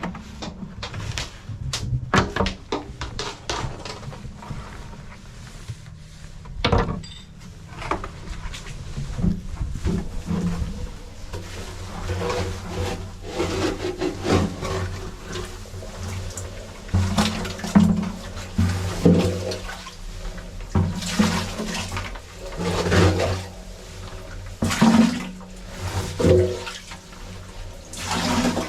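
Oily sludge being scraped out of an opened underground heating-oil tank with a spackle knife and scooped into buckets: irregular wet scrapes, slops and knocks, busier in the second half, over a steady low hum.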